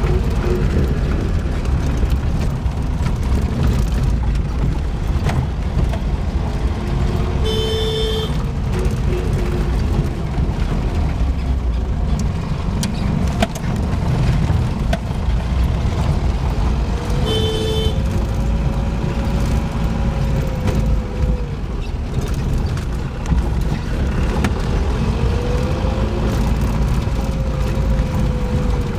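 A car driving, heard from inside the cabin as a steady low rumble. A short horn toot sounds about 8 seconds in and another, briefer one about 17 seconds in; slow rising-and-falling whines come twice in the second half.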